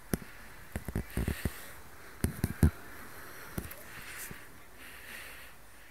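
A scatter of short, sharp knocks and clicks, bunched in the first three seconds, with a few fainter ones after.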